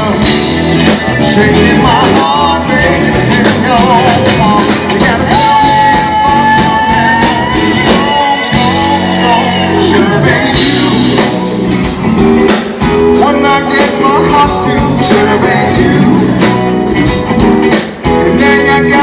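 Live blues-rock band playing: electric guitars, keyboard and drums, with a male singer's voice through the PA.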